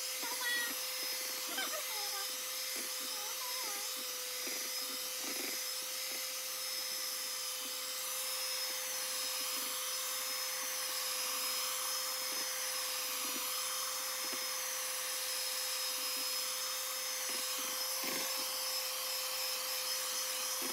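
Electric hand mixer running steadily at medium speed, its beaters whirring through cake batter in a plastic bowl to beat it smooth: a steady motor whine with a high hiss.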